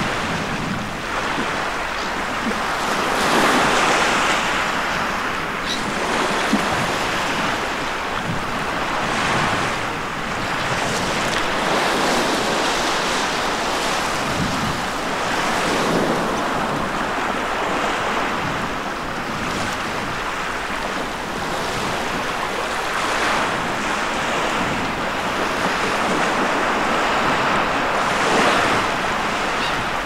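Small sea waves breaking and washing over a bank of stranded seaweed at the shoreline. The surf swells and falls back every few seconds.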